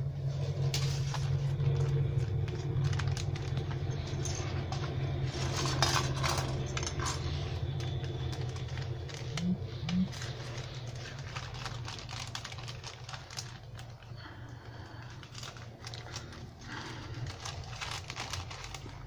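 Clear plastic bag crinkling and rustling as it is handled and pulled open, with plastic model-kit sprues clicking against each other inside. A steady low hum runs underneath.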